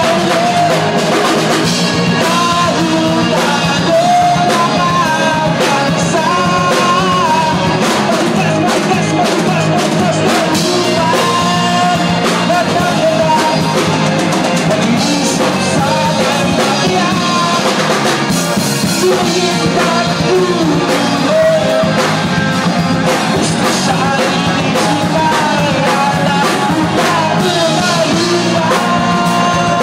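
Live band playing loud: a singer over a drum kit and an electric stage keyboard.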